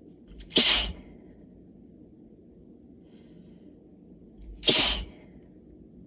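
A person sneezing twice, allergy sneezes about four seconds apart. Each is short, with a brief intake of breath just before it.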